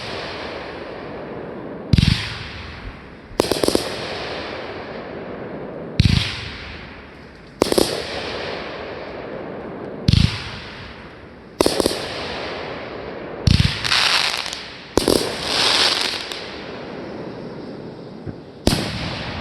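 A string of firework explosions, about nine in all, roughly every two seconds. Deeper thumps alternate with sharper, brighter bangs, and each is followed by a fading hiss. A longer crackling hiss comes about two thirds of the way through.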